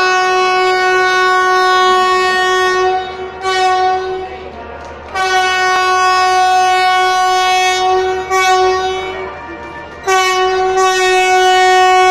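Train horn blowing one steady tone, over and over: a long blast, a short toot, a second long blast, another short toot, then a third long blast that is still sounding at the end.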